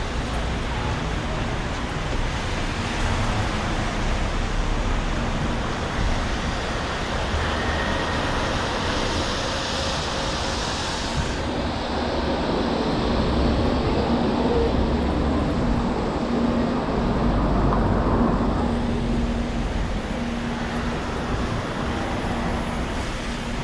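City street traffic: vehicles running past steadily with a low rumble. A high hiss over it cuts off abruptly about eleven seconds in.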